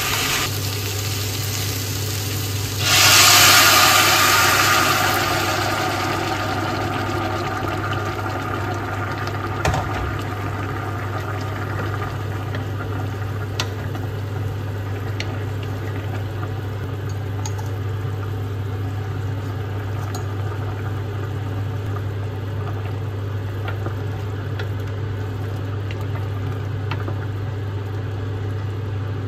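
A steady motor hum in a kitchen where beans are being cooked. About three seconds in, a loud hiss starts suddenly and fades away over a few seconds.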